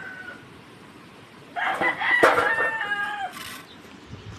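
A rooster crows once, starting about a second and a half in and lasting about a second and a half, ending on a falling note.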